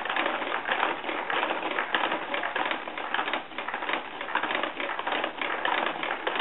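A baby bouncing in a spring-suspended baby jumper: the plastic seat, frame and tray toys clatter and click rapidly, swelling and easing with the bounces.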